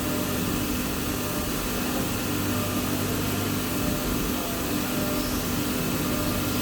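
Steady running noise of a CNC machine tool: an even hiss with a low hum and a few constant tones.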